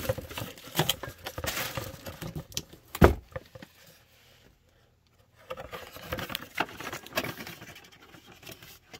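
Cardboard boxes being handled on a table: scattered taps, scrapes and rustles, with one sharp knock about three seconds in, loudest of all. After a brief lull, more scraping and rustling follows.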